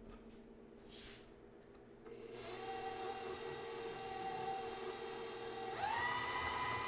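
Electric stand mixer with a flat beater starts running about two seconds in, mixing thick batter. Near the end it is switched to a higher speed and its motor whine rises in pitch and gets louder.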